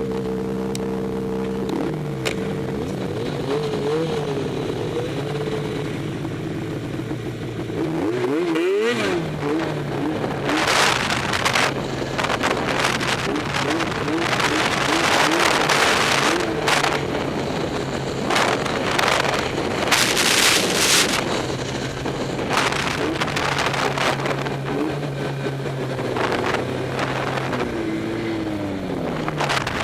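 Snowmobile engine idling steadily, then revving up and down again and again as the sled gets moving. Loud rushing noise comes in patches between about ten and twenty-one seconds in, and the revs fall away near the end.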